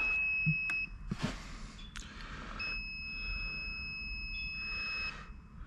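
Insulation resistance tester beeping steadily while it applies its test voltage to an electric-car battery module: one high tone cuts off just under a second in, and a second one sounds for about two and a half seconds from midway, with a couple of light clicks between.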